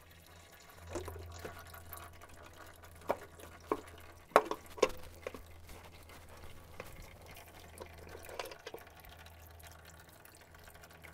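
A tractor's spin-on hydraulic filter being unscrewed by hand, with hydraulic fluid dripping from it, over a low steady hum. A handful of sharp clicks from the filter and its housing come between one and five seconds in, the loudest about four and a half seconds in.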